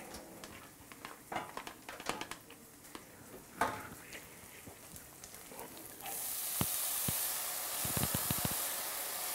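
Faint clinks and knocks of kitchen handling, then about six seconds in a sudden steady sizzle as diced raw orange-fleshed sweet potato is tipped into a hot oiled pan of sweated onions, with a few sharp knocks of bowl or spoon against the pan.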